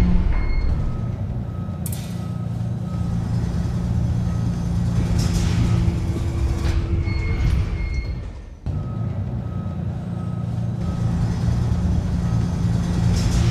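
City bus cabin: the engine and road give a steady low hum and rumble, over which a short high beep repeats about twice a second. The sound drops out briefly about two-thirds of the way through, then picks up again.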